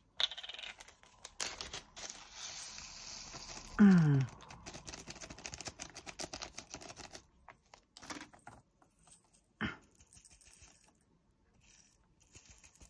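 Plastic drill baggie crinkling as it is opened, then a rapid run of tiny clicks as resin diamond-painting drills pour into a small plastic storage pot, thinning to scattered clicks. About four seconds in there is a short, loud falling vocal sound.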